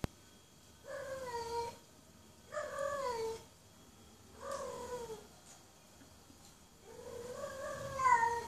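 Female cat in heat giving her mating call: four drawn-out howling meows, each sliding down in pitch at its end. The last call, near the end, is longer and louder.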